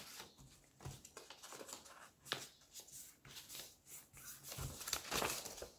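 Faint rustling and crinkling of a sheet of paper being folded and creased by hand, with a few sharper crackles as the corners are pressed down.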